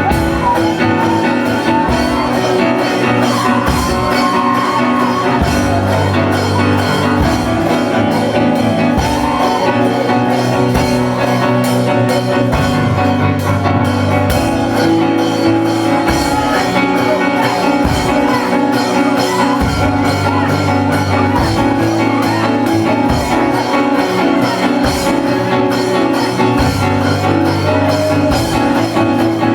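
Loud live church praise music with a band: drum kit keeping a steady beat under sustained keyboard or guitar chords.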